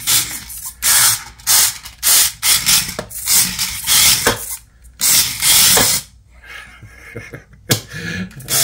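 Mini toy-grade RC drift car driven in short throttle bursts on a plastic cutting mat: its small electric motor whirs and its hard tyres hiss as they slide. There are about seven bursts, with a quieter lull near the end.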